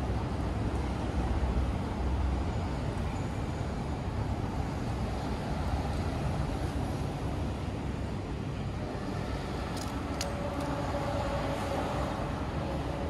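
Steady city street ambience: a low rumble of road traffic, with a few short sharp clicks about ten seconds in and a faint steady tone near the end.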